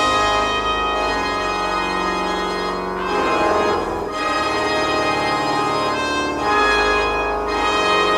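Pipe organ playing held full chords with deep bass notes, moving to a new chord several times.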